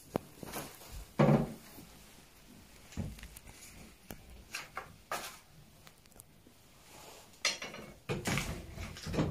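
Light clicks and knocks of small objects handled on a tabletop, a utensil and cardboard props being picked up and set down, scattered irregularly, with one louder knock about a second in.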